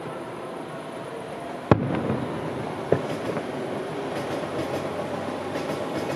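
Fireworks going off: a sharp bang about a second and a half in, a smaller one about three seconds in, then scattered crackling over a steady background noise.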